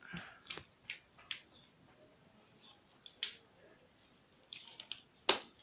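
Homemade slime mixture being stirred and worked, giving irregular sharp sticky clicks and small wet smacks, with the loudest smack just before the end.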